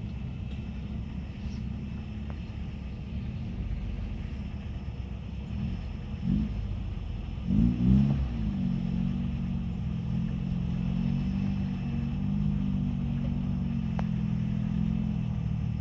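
Lifted pickup truck's engine running at low revs while rock-crawling, with two short revs about six and eight seconds in, then a steadier, slightly louder engine drone as the truck climbs the boulder again.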